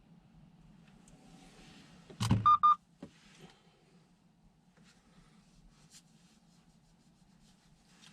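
Faint steady low hum. About two seconds in comes a short rumbling thump, then two quick high electronic beeps and a click.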